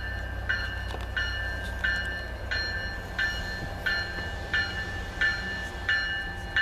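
Approaching commuter train's warning bell ringing steadily, about three strokes every two seconds, over a low steady rumble.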